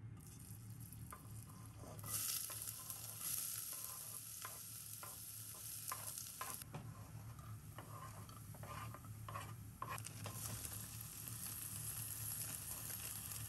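Food sizzling in a frying pan while a utensil stirs it. The sizzle comes in about two seconds in, and a run of clicks and scrapes against the pan falls in the middle.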